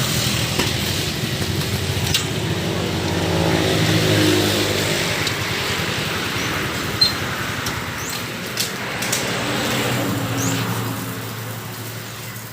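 A passing motor vehicle's engine hum that swells and fades twice, with a few sharp knocks over steady background noise.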